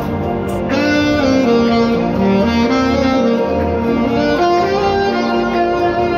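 Alto saxophone playing a melody of held notes over backing music, with a bright new phrase coming in about a second in.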